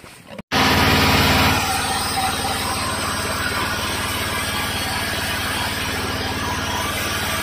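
Engine or motor running steadily, cutting in abruptly about half a second in and a little louder for the first second.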